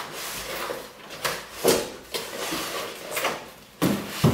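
Cardboard scraping and scuffing as a boxed set is worked out of a tight-fitting cardboard shipping box: a series of short scrapes and knocks.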